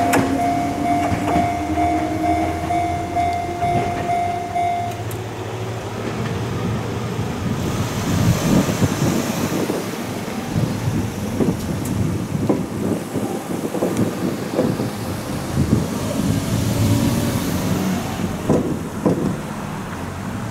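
Ohmi Railway electric train running on the line: a motor whine rising slowly in pitch for the first few seconds, then a long run of wheel clacks and knocks over the rail joints and points.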